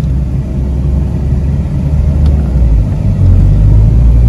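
Land Rover Defender engine and drivetrain heard from inside the cabin, driving slowly along a rough bush track, a steady low running noise that grows a little louder about three seconds in.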